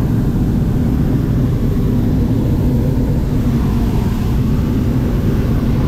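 Hot air balloon's propane burner firing with a loud, steady roar.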